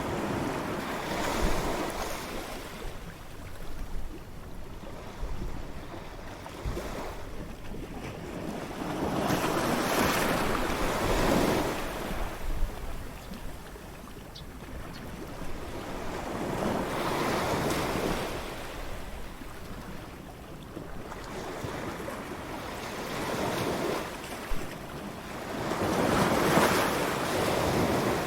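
Ocean waves breaking and washing up a beach, the surf rising and falling in slow surges every several seconds, loudest near the end.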